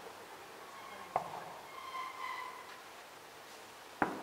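Distant fireworks shells bursting: two sharp bangs, about a second in and near the end, each with a short echoing tail. Faint drawn-out tones sound between them.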